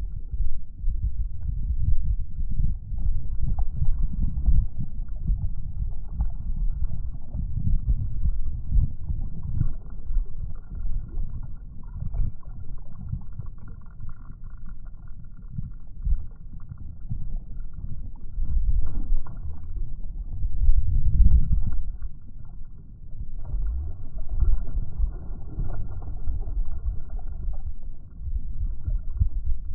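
Low, gusting rumble of wind on the microphone, mixed with water lapping against the hull of an Oru Haven TT folding kayak on choppy water.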